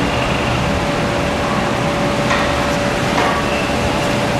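Steady rushing background noise of a workshop, with a faint constant hum and two light clicks about two and three seconds in.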